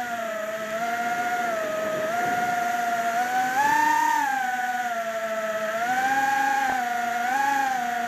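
Three-inch FPV quadcopter's motors and propellers whining steadily, the pitch swelling and falling as the throttle is eased up and down: higher about four seconds in and again near six and seven and a half seconds. A brief click comes about six and a half seconds in.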